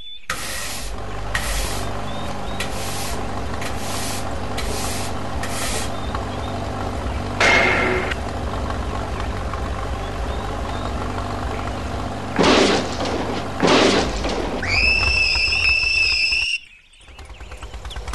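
Engine running steadily, with a run of about seven evenly spaced short scraping strokes in the first few seconds and a few louder rushes of noise later. Near the end a high squeal like brakes lasts about a second and a half, then the sound cuts off abruptly.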